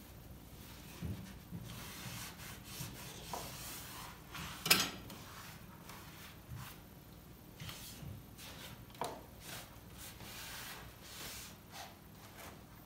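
The glass door of a cast-iron wood stove being wiped clean, rubbing in several stretches, with a sharp knock about a third of the way in.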